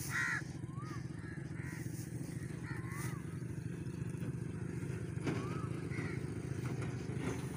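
A steady low engine running without a break, with crows cawing a few times over it.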